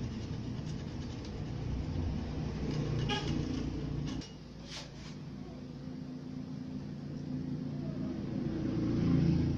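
A motor vehicle's engine running nearby: a low, steady rumble that drops off suddenly about four seconds in and builds again toward the end, with a few faint clicks in between.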